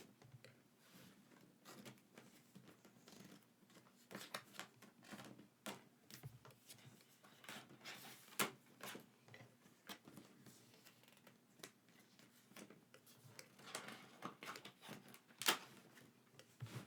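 Faint handling noise of packaging and merchandise being unboxed: scattered light clicks, taps and rustles, with two sharper clicks about halfway through and near the end.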